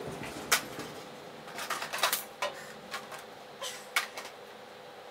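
Scattered light clicks and knocks, several in quick succession about two seconds in, over a faint steady hum.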